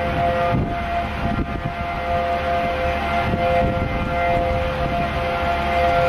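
Outdoor tornado warning siren sounding a steady held tone, two pitches together, with a rough low rumble of wind beneath it.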